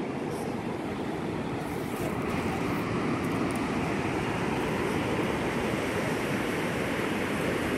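Ocean surf breaking and washing up a sandy beach, a steady rushing, with wind on the microphone adding a low rumble. It grows slightly louder about two seconds in.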